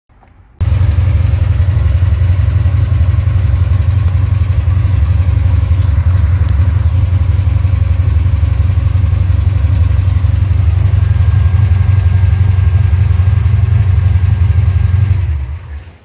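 A loud, steady low rumble that starts abruptly, holds level and cuts off about fifteen seconds later.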